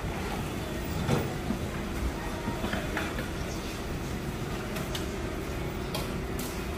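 Busy street-market stall ambience: a steady low rumble of background noise with a few sharp clicks and clatters of dishes and utensils. A faint steady hum sets in about a second in.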